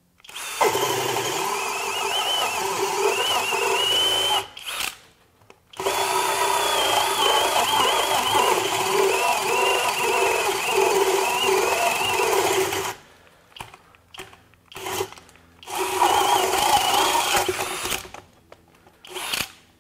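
FLEX 24-volt hammer drill in speed two, without turbo, driving a 2-9/16 inch self-feed bit through pressure-treated lumber: the motor whines under heavy load as the bit chews through the wood. It runs in two long spells, then in several short bursts with gaps between. The drill stops once because the chips are not clearing fast enough, but the bit makes it through.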